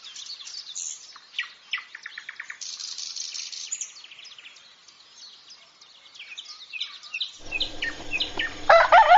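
Songbirds chirping and trilling, many short calls and quick trills overlapping. Near the end a steady background hum comes in, and a much louder pitched call starts with rising sweeps.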